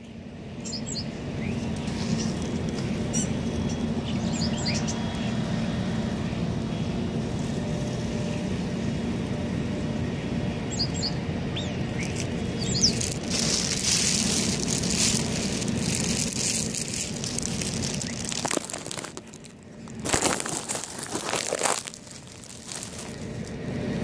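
A flock of small birds in bare winter trees, chirping in short high calls over a steady low rumble. About halfway through, and again near the end, the bird noise swells into louder bursts of wing flapping and calls, as when the flock flushes.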